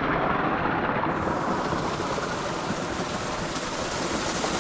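Water rushing hard and steadily in a rain-swollen flow.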